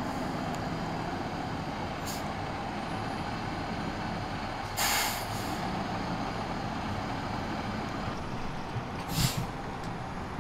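Fire engine's diesel running as the truck pulls up and stops, with a loud burst of air-brake hiss about five seconds in as the brakes are set. A shorter hiss with a thump comes near the end.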